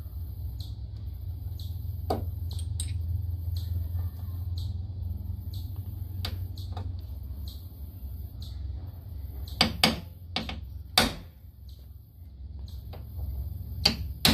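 Sharp clicks and taps of a small metal hand tool against a Jeep JK's hood while the centre of a hole is marked, a few scattered and a quick cluster near the end, over a steady low rumble.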